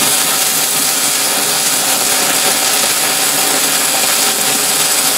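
MIG welding arc running one continuous bead on steel, a steady dense crackle that stays even throughout.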